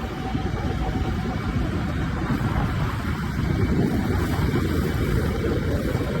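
Preet 987 combine harvester's diesel engine running as the machine travels by road: a steady low rumble that gets a little louder about halfway through.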